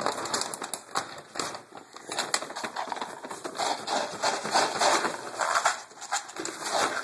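Pug puppy's claws clicking and scrabbling rapidly on a hardwood floor and rug as it spins around excitedly.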